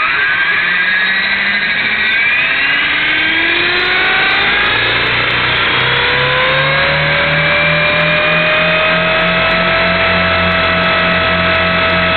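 Align T-Rex 450 Pro electric RC helicopter spooling up: the motor and gear whine rises in pitch over the first several seconds, then holds steady at flying rotor speed.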